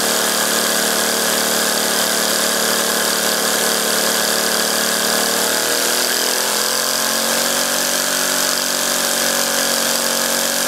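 Small homemade three-cylinder radial engine running fast on compressed air, a steady mechanical buzz over a hiss of air. About halfway through its pitch rises as the engine speeds up, then holds at the higher speed.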